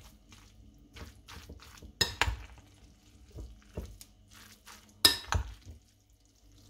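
A metal spoon stirring a mayonnaise-dressed salad in a glass bowl: a run of short, soft scraping strokes, with two louder clinks of the spoon against the glass about two seconds in and again about five seconds in.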